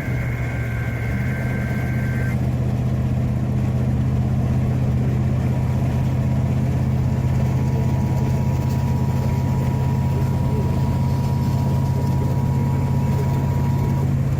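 Steady engine and road rumble inside a moving car on the highway. Faintly over it, the car's FM radio plays the tail of the EAS data-burst tones for a couple of seconds. Then, from about five seconds in, it plays the steady two-tone EAS attention signal for a child abduction emergency, which cuts off near the end.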